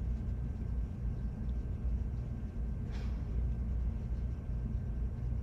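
Steady low hum of room noise, with a single faint click about three seconds in.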